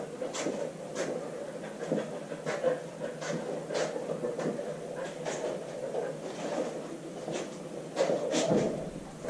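A dog panting and sniffing in quick, irregular puffs as it works a room for a target odour in a scent-detection search.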